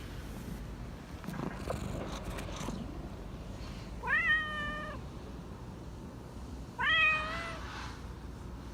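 Persian cat meowing twice, about three seconds apart, each meow rising in pitch and then held briefly. It is a soft, coaxing, attention-seeking meow. Faint rustling and small knocks come before the meows.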